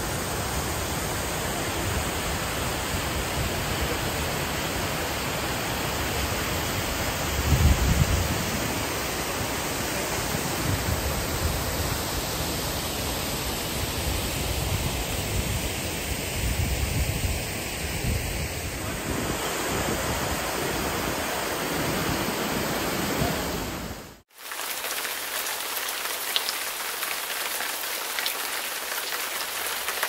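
Waterfall rushing, a steady wash of falling water, with wind buffeting the microphone in gusts, the strongest about 8 seconds in. The sound drops out for a moment about 24 seconds in and comes back with little wind.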